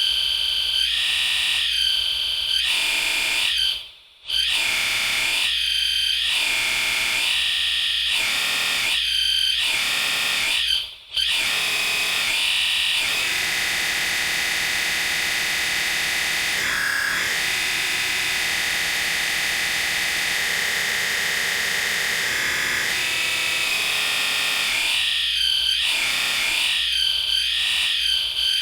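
A harsh, distorted, high-pitched screech sound effect, pulsing in quick repeats and breaking off briefly twice, then held as one long steady screech through the middle before pulsing again near the end.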